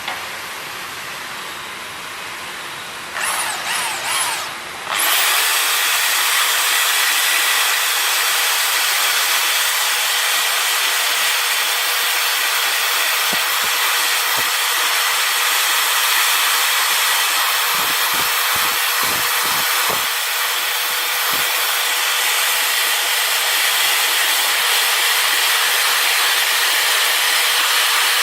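Power drill driving a soft bronze wire brush: a few short trigger bursts with a rising and falling whine about three seconds in, then running steadily, scrubbing the metal engine parts clean.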